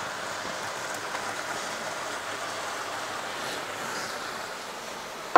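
Frying pan of tomato sauce with tuna and sweetcorn sizzling on the stove: a steady, even hiss.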